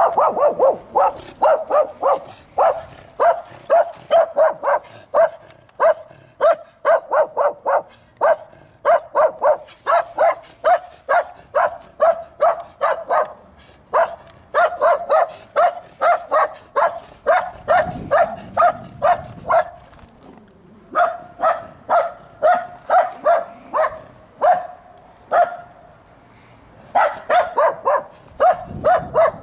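A dog barking rapidly and over and over, about two to three barks a second, breaking off for a moment a few times.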